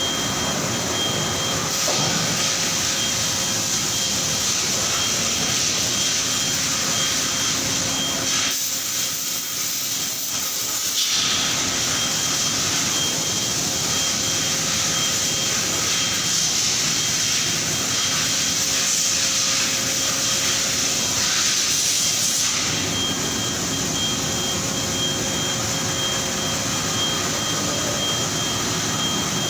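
Steady din of engine-factory machinery: a constant hissing, whirring noise with a few steady tones through it. About a third of the way in, the lower part of the noise drops away for a couple of seconds, leaving a high hiss.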